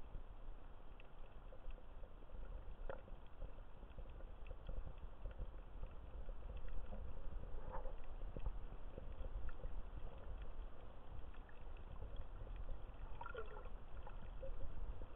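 Underwater sound of shallow sea water: a steady, muffled low rumble of moving water with scattered faint clicks, and short gurgles about halfway through and again near the end.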